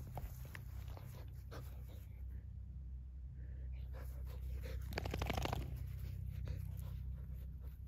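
A labradoodle moving about in long grass: scattered rustles and light footfalls, with a dog's breathing and panting, over a steady low rumble. About five seconds in there is a louder burst of rustling lasting about half a second.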